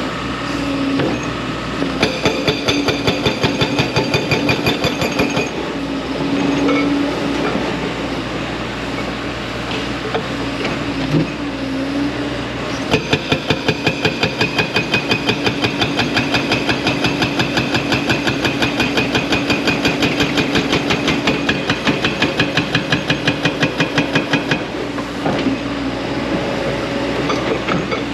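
Hydraulic breaker on a 55,000 lb JCB excavator hammering rock in rapid, evenly spaced blows, in two spells: a short burst a couple of seconds in and a longer one from about halfway until near the end. The excavator's diesel engine runs steadily throughout.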